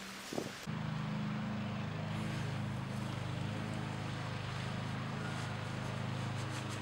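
A steady low mechanical hum with several pitched tones, like a motor or engine running, starting suddenly under a second in.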